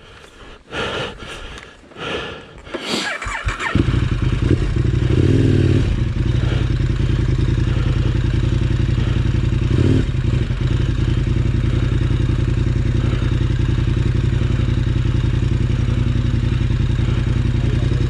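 KTM 1190 Adventure R's V-twin motorcycle engine starting about four seconds in, after a few knocks and clattering handling noises. It revs briefly, then idles steadily.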